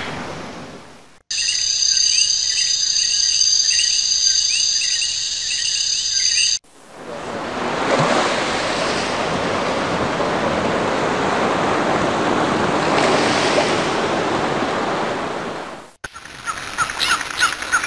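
A string of nature sound effects, each cut off abruptly. First a high steady buzz with rapid chirps over it. Then several seconds of rushing surf that swells and ebbs, and near the end, chirps and clicks start again.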